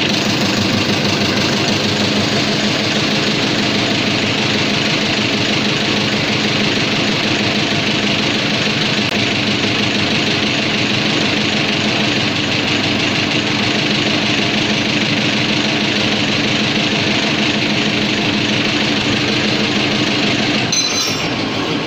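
Repaired in-line fuel injection pump of an MTZ-80 tractor's D-240 diesel, driven by a test-bench motor and pumping fuel through the injectors at an idle setting: steady mechanical running.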